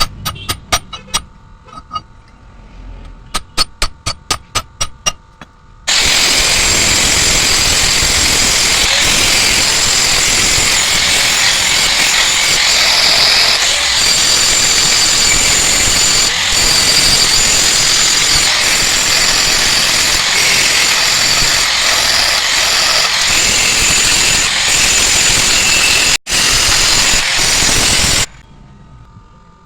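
Rapid metallic clicking, then a loud, harsh, continuous grinding or cutting noise from a metalworking tool that starts suddenly, breaks off for an instant near the end, and stops abruptly.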